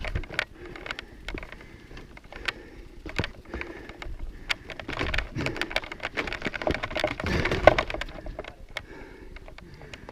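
Mountain bike rattling over rough, rocky trail, with many irregular sharp clicks and knocks over a noisy rumble of tyres on dirt that grows louder around the middle.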